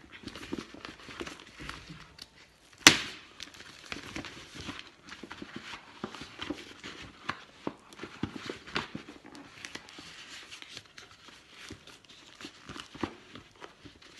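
Crinkling and rustling of a foil-lined plastic courier bag and plastic-wrapped parcel as it is handled and pulled open by hand, with many small crackles and one sharp snap about three seconds in.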